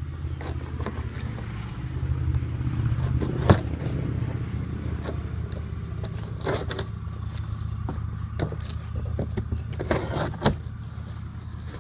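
A cardboard carton being cut and opened, giving scattered clicks and rustles, a sharp knock about three and a half seconds in, and scraping, tearing bursts near the middle and again near the end. A steady low hum sits underneath.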